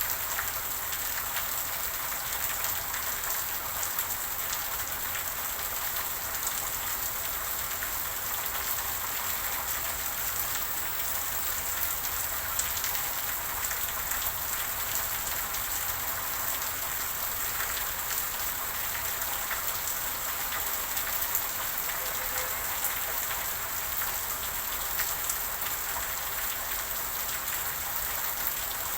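Steady rain falling, a constant hiss with many small drops pattering on a surface.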